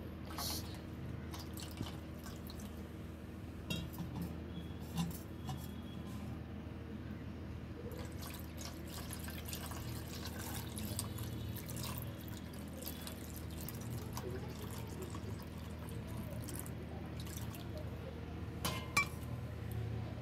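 Water poured from a brass pot onto a small idol in a brass basin, splashing and trickling into the shallow pool, with a few light knocks and clinks against the brass. A steady low hum runs underneath.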